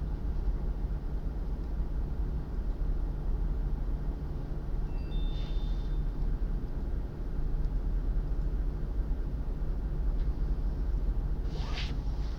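Steady low background rumble, with a brief faint high tone about halfway through and a faint short swish near the end.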